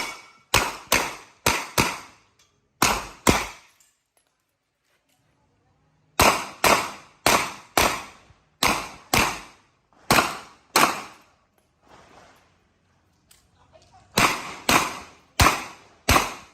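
Revolver shots fired in quick pairs about half a second apart, the double taps of a practical-shooting stage, with pauses of a couple of seconds between strings.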